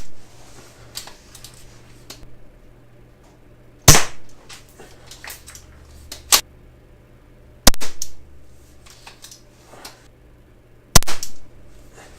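Classic Army CA870 pump-action airsoft shotgun firing three sharp shots about three and a half seconds apart, with quieter clacks in between as the pump is worked to cock it for the next shot.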